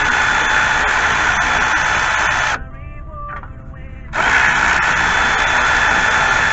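Milwaukee cordless ratchet running on a 12 mm upper ball joint nut: it whirs for about two and a half seconds, stops, and starts again about four seconds in. The nut is turning along with its bolt, so it is not coming off.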